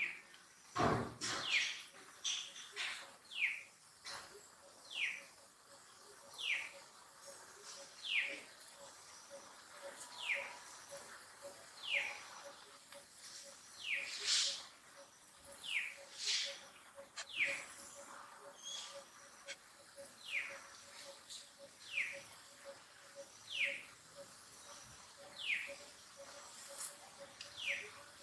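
A bird calling over and over, a short falling whistle about every one and a half seconds, with a faint steady pulsing drone underneath. A brief thump about a second in is the loudest sound.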